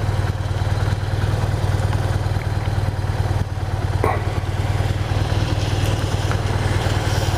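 BMW R1200 RT-P's flat-twin boxer engine running steadily, a low even hum under a steady rush of noise.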